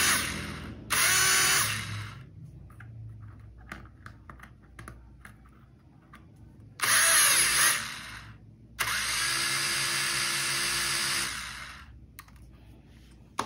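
E88 toy quadcopter's small motors and propellers whirring in bursts as they are throttled up on the bench, during a test in which one arm motor does not run. There are four bursts: one at the start, a short one about a second in, one about seven seconds in, and a longer one of about two and a half seconds near the end, each cutting off quickly.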